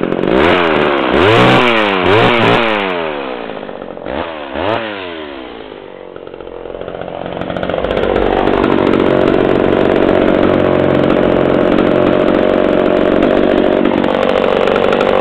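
Homelite Super XL two-stroke chainsaw revving up and down several times in quick blips, then settling into a steady, even run at a lower pitch for the last seven seconds or so.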